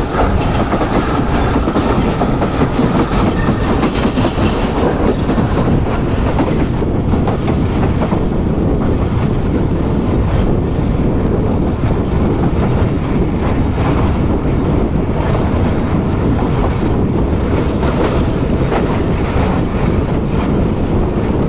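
Passenger train coach running at speed, heard from its open doorway: wheels clattering over rail joints and a set of points in the first few seconds, then settling into a steadier rumble on plain track.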